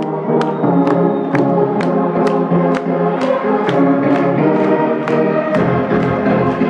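Electronic dance music played loud over a nightclub sound system: sustained synth chords over a steady beat of about two strokes a second. A deep bass comes in near the end.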